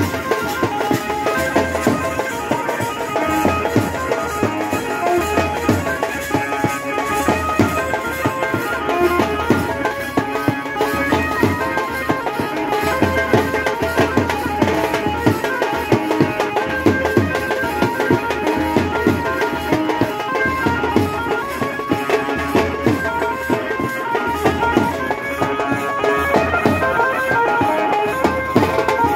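Indian wedding band (band baja) playing folk dance music: drums beaten in a fast, steady rhythm with a melody carried over them.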